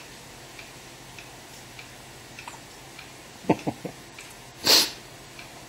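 A baby hiccuping: three short low catches in quick succession about three and a half seconds in, then a sharp, breathy hiccup about a second later.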